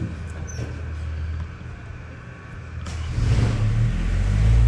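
Zoo ride train's engine running with a low hum. About three seconds in there is a clunk, and the engine revs up and runs louder.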